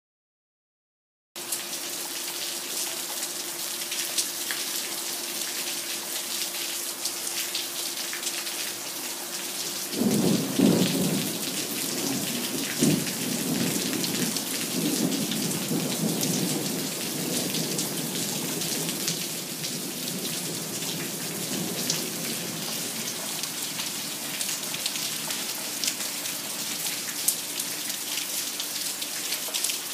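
Steady rain falling from a monsoon thunderstorm, with a low rumble of thunder starting sharply about ten seconds in and rolling on for several seconds. The sound opens on about a second of silence, and a faint steady hum sits under the rain.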